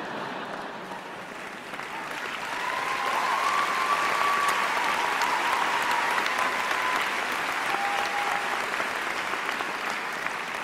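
Large audience applauding, the clapping swelling over the first few seconds, holding steady, then slowly dying down.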